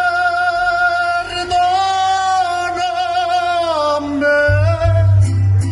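Mariachi music: a man sings one long high held note that wavers, then steps down twice near the four-second mark. Low bass notes come in strongly near the end.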